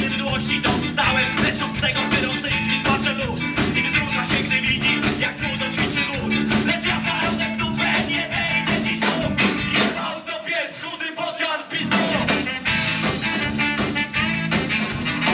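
Live ska-punk band playing an instrumental passage on electric guitars, bass, drums and saxophone, with a steady beat. About ten seconds in, the bass drops out for under two seconds, then the full band comes back in.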